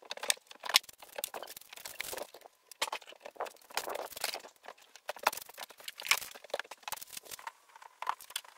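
Irregular clatter, knocks and rustling of kitchen gear being handled and lifted out of a van's wooden kitchen cabinet and carried away.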